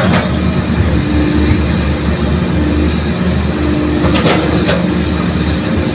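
Hitachi hydraulic excavator's diesel engine running under work with a steady drone, with a few sharp clanks about four seconds in.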